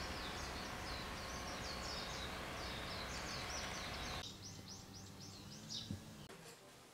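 A small bird singing a quick run of short, high chirps over steady outdoor background noise; the background noise drops away about four seconds in, and the chirping stops shortly before the end.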